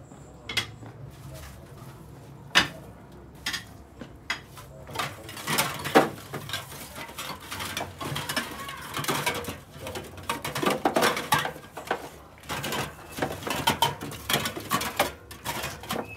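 Aluminium drink cans clinking and clattering against one another as hands rummage through a metal tub heaped with them, a busy run of rattling through most of the second half. Before that there are a few separate light knocks.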